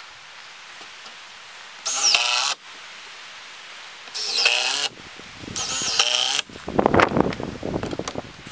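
A cordless drill run in three short bursts, driving fasteners into the wooden roof planks, then a few seconds of knocking and clattering on the boards.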